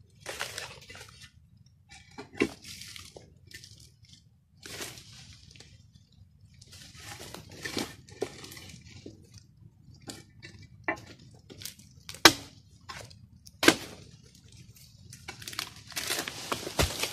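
Long-handled oil palm harvesting blade chopping into frond bases and fruit-bunch stalks: irregular crunching cuts and several sharp knocks, the loudest a little past halfway and near the end, with rustling of palm fronds between them.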